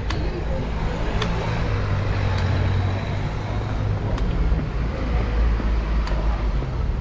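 Outdoor street ambience on a village road: a steady low rumble, with a few sharp clicks a second or two apart.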